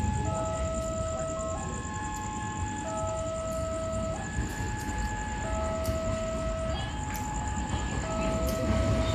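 A railway warning alarm sounding steadily in two alternating tones, a lower and a higher one, each held about a second and a quarter, as an Indonesian level-crossing signal does, over the low rumble of a train, with scattered sharp clicks.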